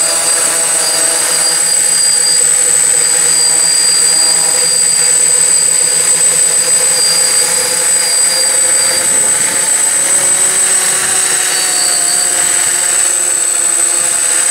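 DJI F450 (Flame Wheel) quadcopter's four electric motors and propellers running close by: a steady buzzing hum with a thin, constant high whine above it.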